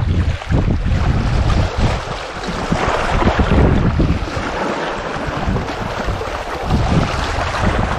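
Gusty wind buffeting the microphone, over the wash of small waves lapping against the shoreline rocks.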